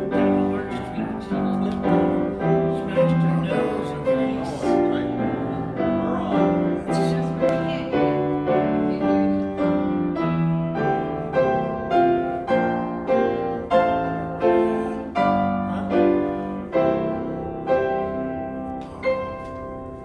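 Solo piano playing slow music in chords with a melody on top, notes struck about once or twice a second, growing softer near the end.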